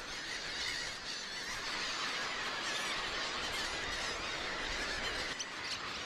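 A large flock of wading birds calling at once: a steady mass of many overlapping high-pitched calls.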